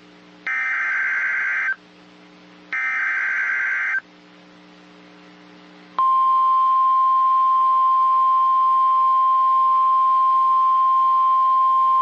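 NOAA Weather Radio alert activation: the last two of three SAME digital header bursts, each a loud screeching data squawk of about a second, then after a short lull the steady single-pitched 1050 Hz warning alarm tone starts about six seconds in and holds. It signals that a warning, here a severe thunderstorm warning, is about to be broadcast.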